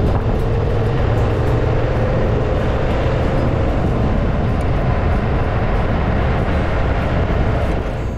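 Steady rush of wind and road and engine noise from a motorcycle riding at speed, heard from a camera mounted on the bike; it drops slightly near the end.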